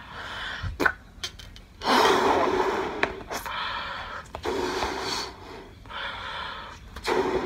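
A person blowing up a rubber party balloon by mouth: several long, hard puffs of breath into the neck, with quick breaths drawn in between, the first puff about two seconds in being the loudest.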